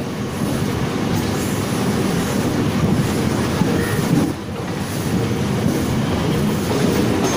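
Mumbai suburban electric local train running on the Western Railway line: the steady noise of wheels on rails, heard from the open doorway, with a short dip in level about four seconds in.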